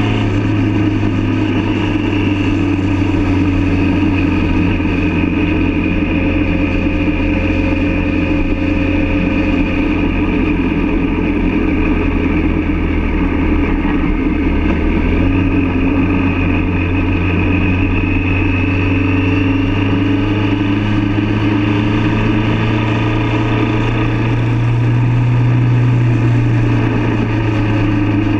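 Motorcycle engine running steadily at cruising speed with wind rushing over the microphone; the engine note rises and grows a little louder near the end as it pulls harder.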